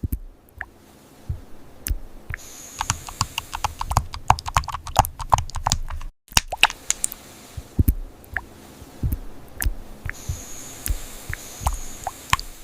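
Typing on a computer keyboard: quick, irregular key clicks with the odd heavier keystroke, stopping for a moment about six seconds in before carrying on.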